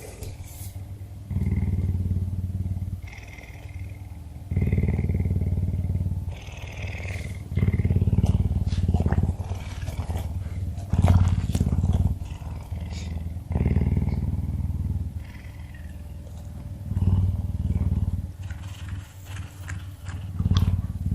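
A puma purring contentedly: a low purr that swells in pulses of one to two seconds, about every three seconds, and fades between them.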